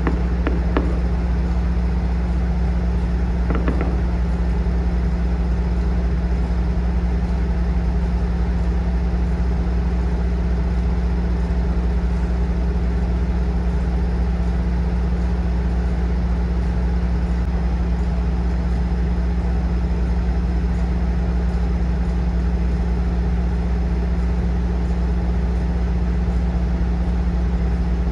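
Heavy diesel locomotive engine running at a steady, unchanging note, with a couple of brief sharper sounds in the first four seconds.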